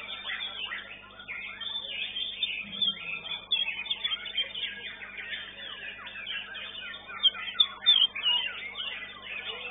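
Many caged songbirds singing at once: a dense, overlapping mix of quick chirps, whistles and trills, with a few louder calls near the end and a faint steady hum underneath.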